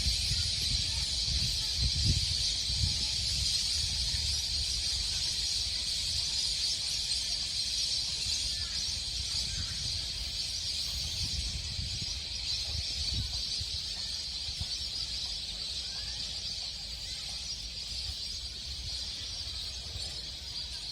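Steady, high-pitched outdoor chorus with a few faint short calls, over low wind rumble on the microphone that comes in gusts and eases toward the end.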